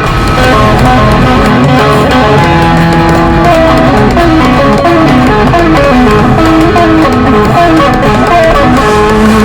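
Loud guitar-driven rock soundtrack music, with a moving melodic riff over steady backing and bass.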